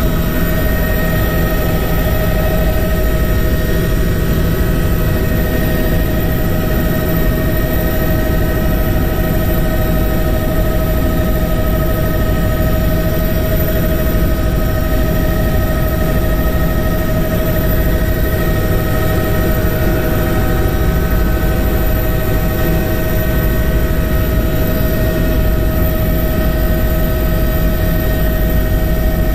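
A steady, loud engine drone with a constant hum whose pitch does not change.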